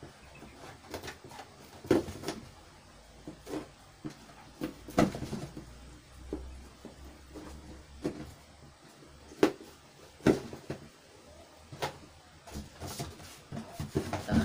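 Plastic tub lids being pierced with a thin metal awl and the tubs being handled, making irregular sharp clicks and knocks a second or two apart.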